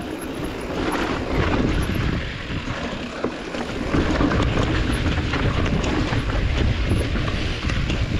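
Mountain bike rolling fast over rough rock: steady tyre noise with frequent knocks and rattles from the bike, getting louder about halfway through.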